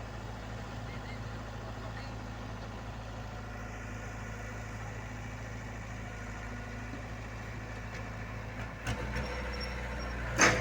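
Diesel engine of heavy construction equipment running steadily at a low idle. Near the end there is a knock, the engine picks up a little, and then comes a single loud, sharp clank.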